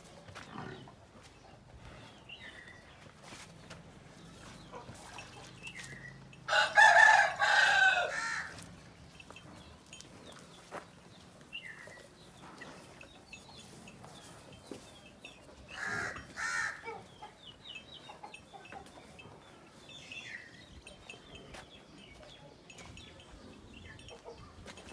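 A rooster crowing twice: a loud, long crow about seven seconds in and a shorter, weaker one near sixteen seconds. Faint high chirps and small knocks come in between.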